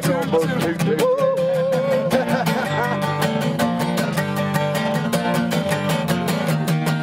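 Acoustic guitar strummed in a steady rhythm, with a voice singing over it.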